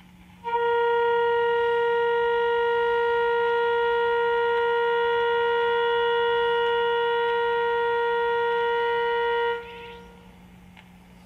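A steady single-pitched tone with many overtones comes from the speaker of a 1939 Fada Model 169 tube radio as it receives a test signal during shortwave alignment. The tone comes in about half a second in, holds an even level, and drops away near the end, over a faint low hum.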